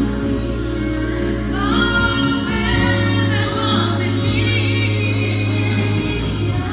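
Live band playing a slow ballad: a woman sings long held notes over keyboard and electric guitar accompaniment with a sustained bass line.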